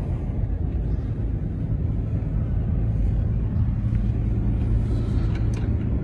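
Car driving on a snow-covered road, heard from inside the cabin: a steady low rumble of engine and tyres, with the engine hum growing a little stronger about halfway through.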